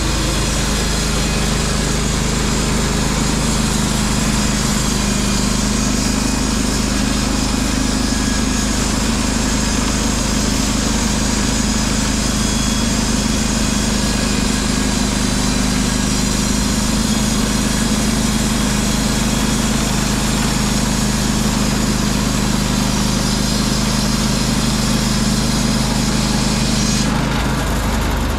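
Norwood LumberPro HD36 V2 portable band sawmill running steadily, its engine droning under the hiss of the band blade cutting through a pine log. Near the end the cutting hiss stops and the engine keeps running.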